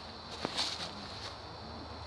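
Footsteps crackling on dry leaf litter, a few short crackles and clicks about half a second to a second in, over a faint steady hiss.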